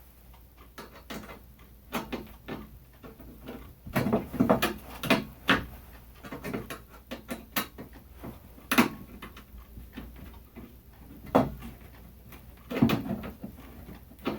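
Irregular knocks and clicks of a screwdriver and screws against the metal motor housing of a ceiling fan as it is screwed in place, with a cluster of sharper knocks about four to five seconds in.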